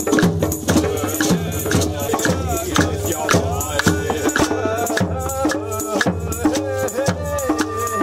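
Improvised percussion jam: a large skin drum struck with a soft felt beater and a djembe keep a steady beat of about two strokes a second, under shaking rattles and clattering small percussion, with a voice chanting a wavering line over it.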